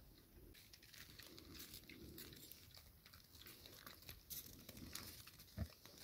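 Faint, irregular crunching and clicking of pigs chewing their feed.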